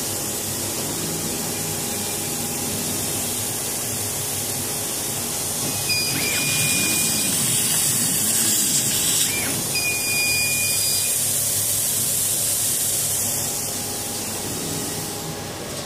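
Camera-guided laser fabric cutter running: a steady hiss of air and fan noise, with short whines and rising and falling tones as the cutting head moves. The hiss grows louder about six seconds in and eases off near the end.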